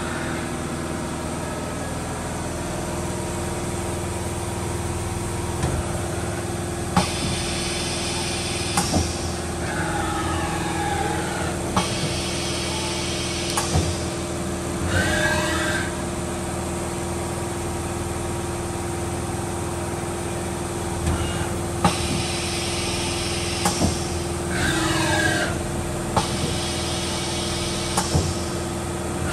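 Hardinge Cobra 42 CNC turning center running through a cycle: a steady hum from its motors and hydraulics, with sharp clicks, bursts of hiss lasting a second or two, and servo whines that glide up and down in pitch as the turret and slides move. The sequence repeats about every 14 seconds.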